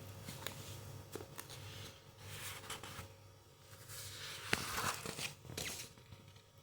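Faint rustling and a scattered handful of short clicks over a low steady hum, with the busiest rustling about two-thirds of the way through.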